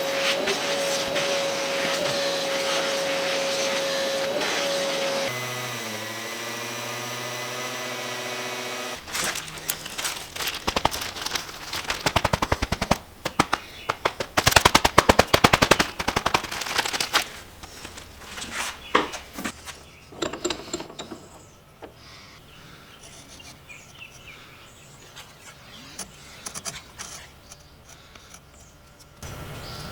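A power tool runs with a steady whine for about five seconds, shifts to a lower hum and stops about nine seconds in. Then comes a fast run of sharp taps and clicks on wood, which thins out after a few seconds to scattered taps.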